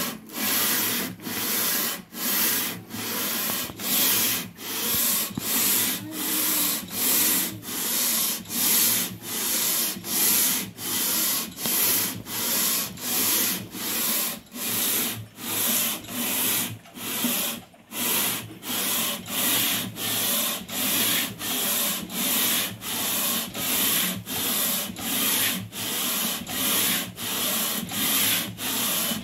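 Aluminium cylinder head of a Toyota 2TR engine being rubbed back and forth by hand on sandpaper over a flat glass plate: a steady rasp in even strokes, about three every two seconds, each breaking off briefly at the turn. It is the head face being lapped flat, the abrasive wearing away the high spots.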